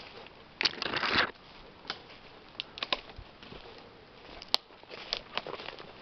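Footsteps crunching through dry leaf litter and twigs on the forest floor, with a louder crackling rustle about a second in and scattered snaps of twigs.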